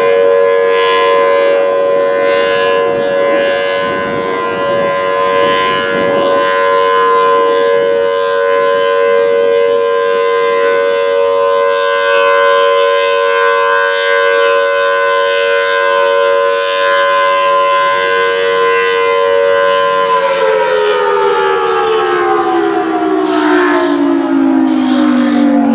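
Federal Signal Thunderbolt 1003 siren sounding a steady alert tone as its horn rotates, then winding down about 20 seconds in, its pitch falling steadily.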